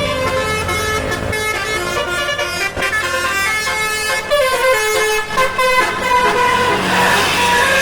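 Telolet basuri musical horn on a big bus or truck playing a tune of stepped, held notes. A hissing rush swells up near the end.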